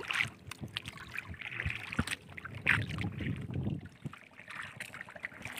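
Water lapping against a small outrigger canoe, with scattered light knocks and clicks, one clear knock about two seconds in.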